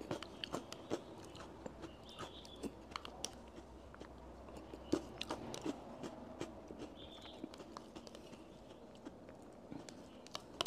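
Close-up eating of stirred yogurt with a crisp grain-and-nut topping: chewing with irregular small crunches and mouth clicks.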